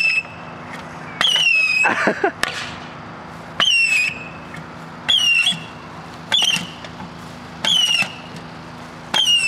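Modified fireworks going off inside a metal ammo box. A string of short, shrill whistles, each one dropping in pitch, comes about every second and a half, over a steady hiss.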